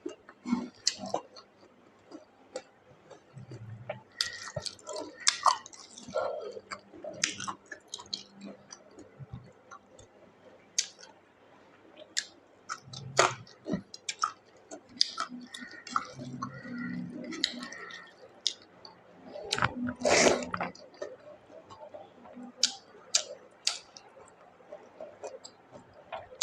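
Close-miked eating: a person chewing pork curry and rice, with wet mouth noises and many short sharp clicks, and a few brief low hums along the way.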